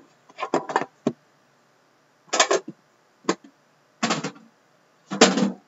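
Knocks and scrapes from a metal card tin and a shrink-wrapped box being handled and set down on a desk. About seven short bursts come at uneven gaps, and the loudest is near the end.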